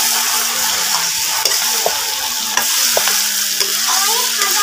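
Chicken pieces frying in a kadai over a strong flame, sizzling steadily while a spatula stirs and scrapes them around the pan with scattered clicks; the meat is starting to stick from the high heat.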